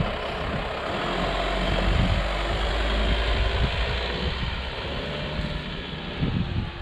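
Vehicle driving, its engine and road noise swelling about a second in and easing off after about three seconds.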